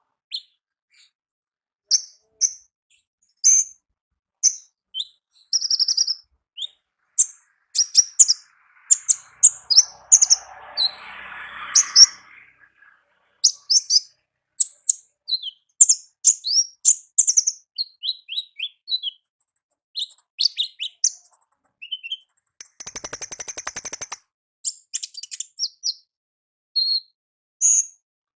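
Konin ninja sunbird calling in its wild call: a busy run of short, sharp, high chirps and quick down-slurred notes, with a loud buzzy rattle of about a second a little past three-quarters of the way in.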